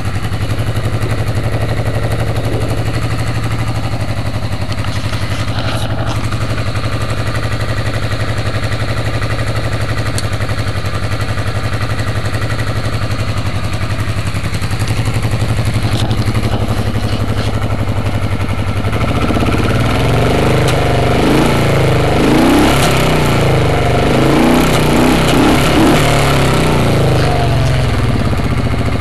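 1986 Honda Shadow VT500's V-twin engine idling steadily, then revved up and down several times over the last third before settling back toward idle.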